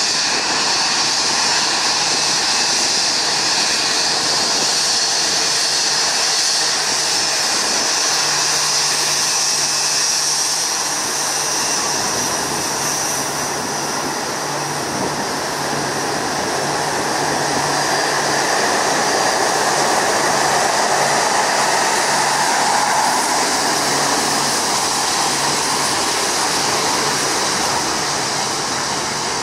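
Twin Rolls-Royce Trent 1000 turbofans of a Boeing 787 Dreamliner running at taxi power: a steady jet whine and hiss over a low hum, swelling a little past the halfway mark.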